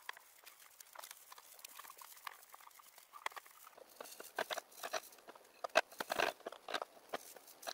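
Paintbrush working wood protector onto wooden slats: soft, irregular brushing strokes and light taps, busier and louder in the second half.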